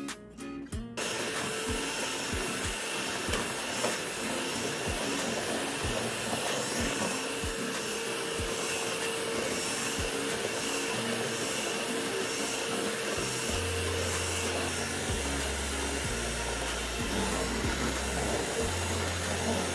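Electric hand mixer switching on about a second in and running steadily, its beaters whisking runny cake batter in a plastic tub. Background music with a low bass line comes in during the second half.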